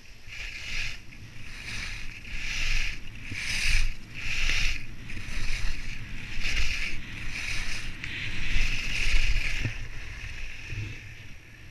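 Skis carving and scraping over hard-packed snow, a swish with each turn at about one a second, over a low rumble of wind on the microphone. The swishes fade near the end.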